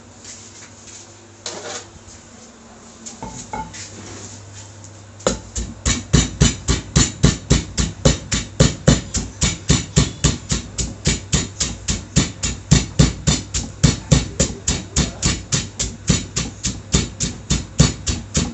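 Mortar and pestle pounding a salad: a few scattered knocks at first. About five seconds in, a steady run of strikes begins at roughly three a second.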